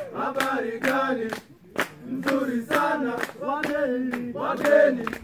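A group of men singing a Swahili song together in chorus, clapping their hands in time about twice a second.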